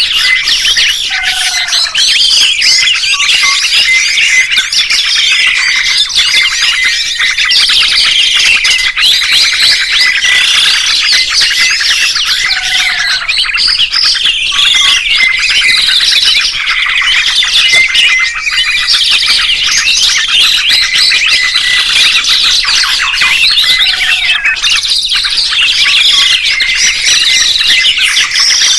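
Several songbirds chirping and trilling at once, a dense, continuous, high-pitched chatter, with a short, lower, falling call about every eleven seconds.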